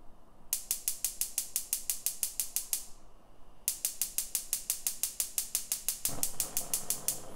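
Gas range burner's spark igniter clicking rapidly in three runs with short pauses between them, while gas purges air out of the newly connected line before the burner will light. Near the end a low rush joins the clicks as the burner catches.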